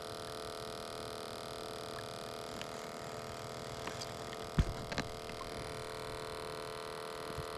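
A steady electric hum made of several constant tones, with a sharp knock about four and a half seconds in and a lighter one just after.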